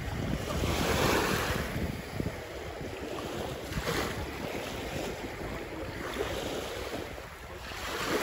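Small lake waves lapping and washing onto a sandy shore, swelling about a second in, again around four seconds and near the end. Wind rumbles on the microphone underneath.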